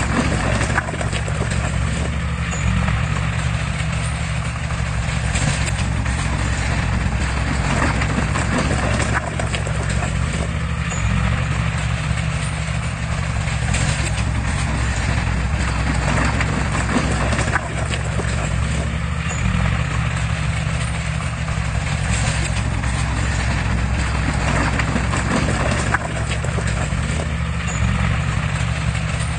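Heavy diesel engine running steadily at a constant pitch under load, with a clattering, rattling metallic noise over it, the kind of sound heavy earthmoving machinery makes.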